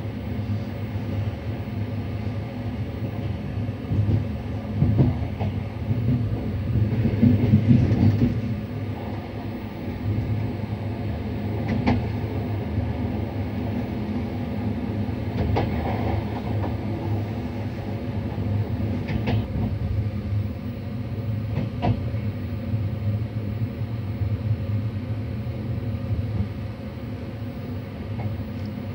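Sr1 electric locomotive running at speed: a steady low rumble of wheels on rail, louder for a few seconds about a sixth of the way in, with a handful of sharp clicks in the middle stretch.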